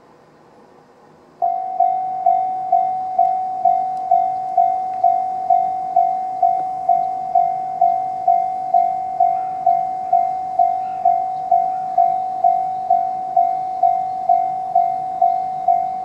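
Electronic level-crossing warning bell of the JR Tohoku type, starting abruptly about a second and a half in and then ringing a repeated single-pitched ding about twice a second, each strike fading quickly. It is the crossing's alarm warning of an approaching train while the barriers come down.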